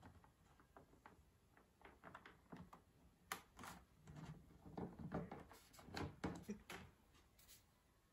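Faint, irregular clicks, taps and rustles of hands handling things on a desk, with a cluster of soft thumps and rustling about four to seven seconds in.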